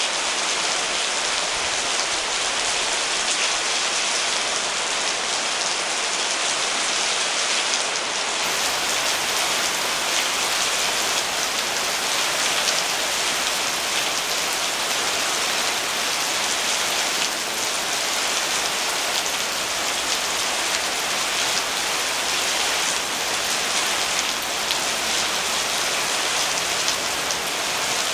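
Steady rain falling on garden plants, an even, unbroken hiss of drops. It grows a little fuller about eight seconds in.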